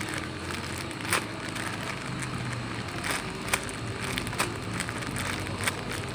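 Hands squeezing and handling a foam squishy toy: soft rustling with about five scattered sharp crackles and clicks over a steady low background hum.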